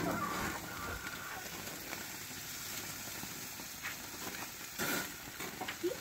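Food sizzling and crackling on a barbecue grill as a steady hiss with scattered pops. It opens with a sharp knock and has a brief louder burst of hiss about five seconds in.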